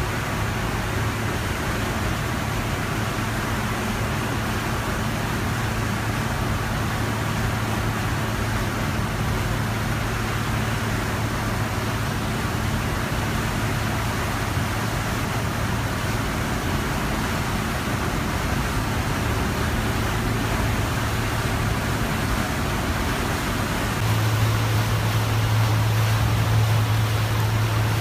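Car ferry's engines humming steadily under a constant rush of propeller wash churning the water astern. The hum grows louder near the end.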